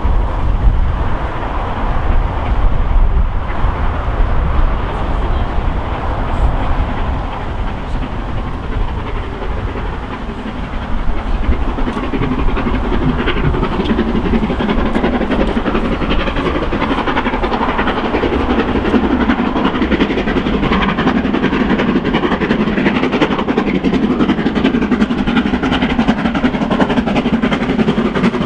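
Black 5 steam locomotive No. 45231 approaching with a train, its exhaust beats and the train's running on the rails growing louder and denser from a little under halfway through as it nears.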